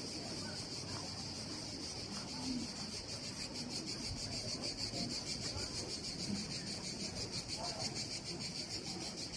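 Cicadas buzzing in a steady, high-pitched summer chorus with a fast, even pulse, over a faint murmur of people talking.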